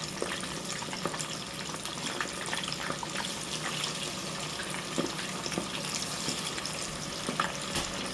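Chicken wings deep-frying in hot oil: a steady sizzle with many small crackles and pops.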